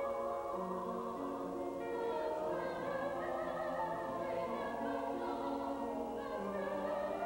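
Choir singing slow, sustained chords in several parts, each chord held about a second before moving on.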